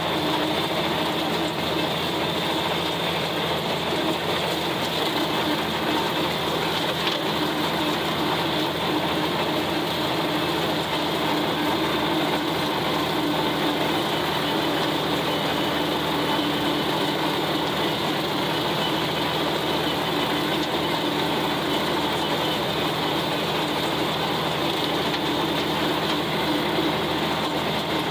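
John Deere 4020 tractor engine running steadily under load, driving a 1408 rotary cutter (brush hog) whose spinning blades and driveline chop dry grass, a dense even mechanical noise with no break.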